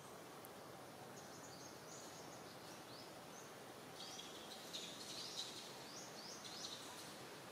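Faint steady background hiss with small birds chirping: quick high chirps in short runs from about a second in, busier from about four seconds.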